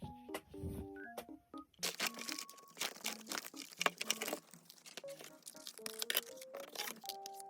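Light background music with short plucked-sounding notes, over dense crinkling and rustling of packaging being opened and handled, busiest from about two to five seconds in.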